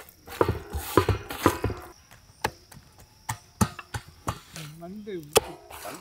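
Wet slaps and squelches of a hand kneading and lifting thick, egg-and-cornflour masala paste in an aluminium bowl, about a dozen sharp slaps at uneven intervals. Near the end a short call bends up and down in pitch.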